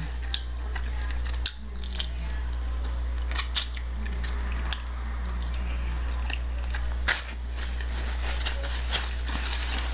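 Close-up sounds of someone eating chicken wings: biting, chewing and small crunches with scattered wet mouth clicks, over a steady low hum.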